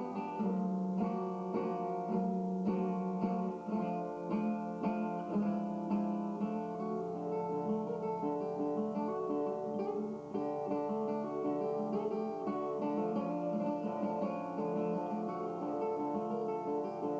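Acoustic guitar playing live: a dense, continuous run of plucked notes over a recurring low note.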